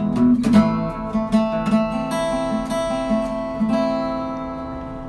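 Background music of acoustic guitar, strummed and picked chords. The last chord rings out and slowly fades near the end.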